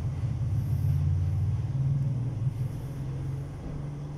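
500 kVA diesel generator engine running steadily, a low, even rumble that eases off a little near the end.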